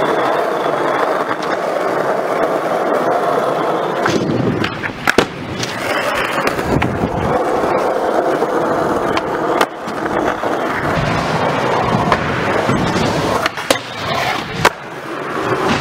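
Skateboard wheels rolling over a smooth skatepark floor, with several sharp clacks of the board popping and landing a few seconds apart.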